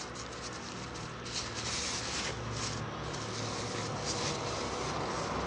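Paper and plastic wrapping of a rice packet rustling and crinkling as it is pulled open by hand, in short irregular crackles, over a steady low hum.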